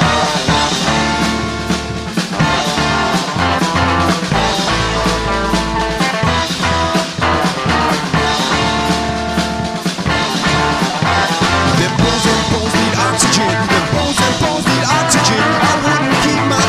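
Loud rock music with drums and a steady beat.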